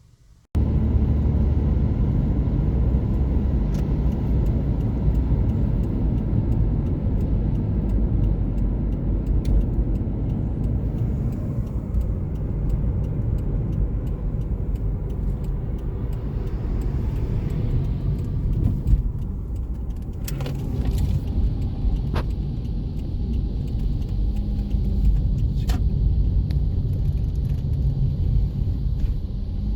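Steady low road-and-engine rumble of a car driving, with a few faint clicks partway through.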